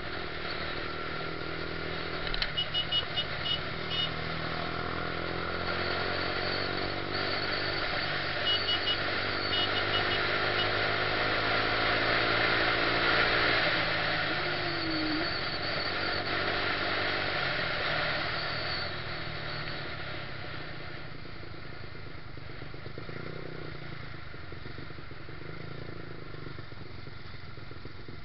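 Yamaha YZF-R125's single-cylinder four-stroke engine running under way, its pitch rising and falling with the throttle, over a steady rush of wind on the microphone. It settles lower and quieter about two-thirds of the way in. Two bursts of short, high beeps come a few seconds in and again about nine seconds in.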